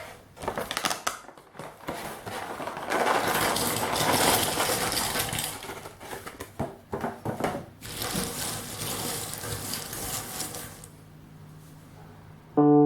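Cardboard jigsaw puzzle pieces rattling and clattering as they are handled, in an irregular run of clicks and rustles that is busiest early on and dies down near the end.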